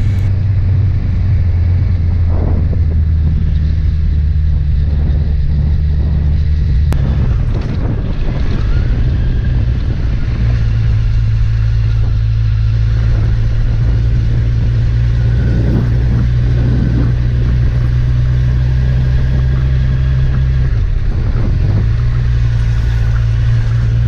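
Car engine and road noise heard from inside the moving car: a steady low hum whose pitch shifts about seven seconds in and again about twenty-one seconds in.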